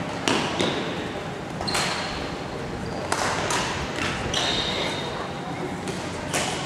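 Badminton play echoing in a sports hall: sharp racket strikes on the shuttlecock every second or so, with short high squeaks of shoes on the court floor after several of them, over a background of voices.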